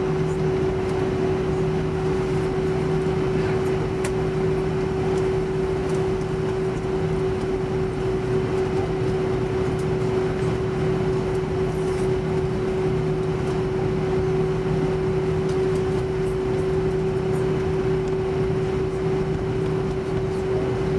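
Airbus A320 cabin noise while taxiing: the steady rumble and hum of the jet engines at taxi power, with one constant mid-pitched tone over an even rushing noise.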